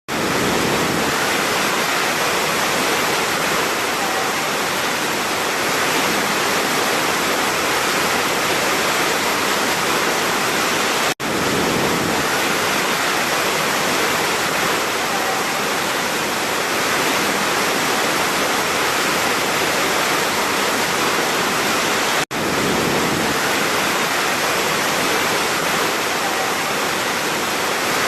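Large waterfall rushing in a steady, dense roar of falling water, cut by two brief dropouts about eleven seconds apart.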